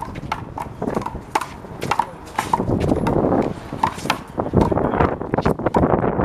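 One-wall handball rally: a rubber handball smacked by open hands and hitting the wall and concrete court, a string of sharp, irregular smacks about one or two a second, with scuffing of sneakers between them.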